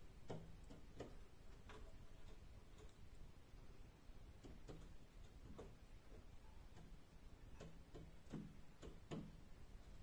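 Pigeon's feet clicking faintly on the glass of a roof window as it steps about: irregular single taps, about ten of them, the loudest two near the end.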